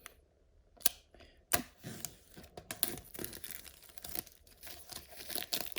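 Apple Pencil packaging being torn open and crinkled by hand: a couple of sharp clicks, then a run of crackly tearing and rustling from about two seconds in.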